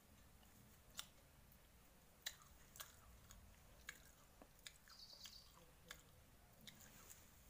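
Faint crunching of someone chewing jaggery-mixed beaten rice (atukulu), heard as a scatter of crisp, irregular clicks.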